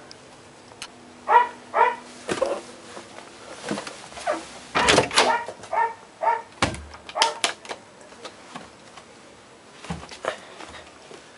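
A dog barking in short bursts of quick barks, with a few sharp clicks and a dull thump in between.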